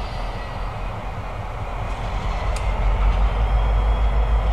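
Two EMD diesel locomotives, a GP50 and a GP38-2, running light toward the crossing. Their engines make a low rumble that grows louder about three seconds in.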